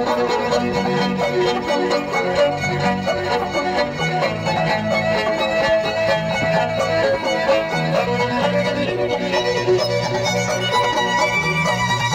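Violin playing a quickly moving melody over electric guitar accompaniment played through a small amplifier.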